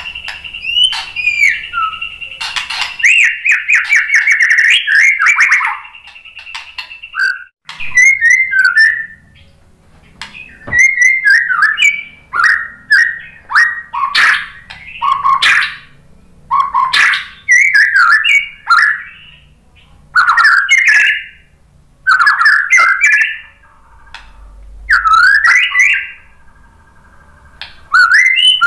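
White-rumped shama singing: a fast trill over a held high note for the first several seconds, then a run of short, loud, swooping whistled phrases, about one a second.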